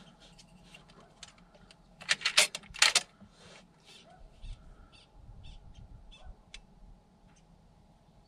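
Short, harsh animal calls in a loose series, loudest about two to three seconds in, followed by fainter, higher chirps roughly every half second.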